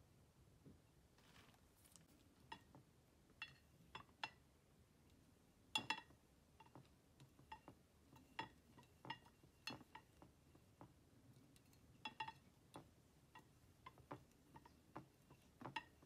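Silicone spatulas stirring slime in glass dishes, tapping and scraping against the glass in irregular light clinks with a brief ring; the loudest is a double clink about six seconds in.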